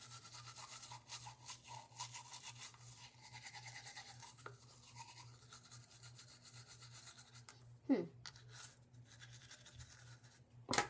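Toothbrush scrubbing teeth in quick back-and-forth strokes, which stop about seven and a half seconds in. A short falling sound follows about eight seconds in, and a louder one comes near the end.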